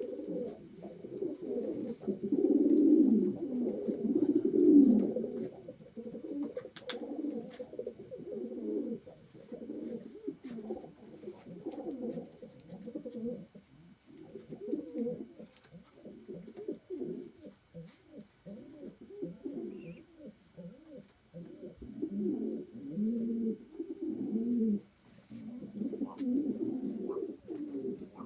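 Several domestic racing pigeons cooing together, low overlapping coos following one another without a break.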